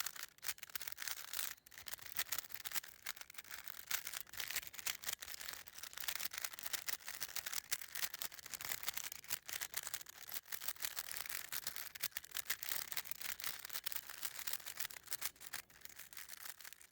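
Rubik's Cube being scrambled by hand: rapid, continuous clicking and rattling of its plastic layers turning, with a couple of brief pauses in the first few seconds.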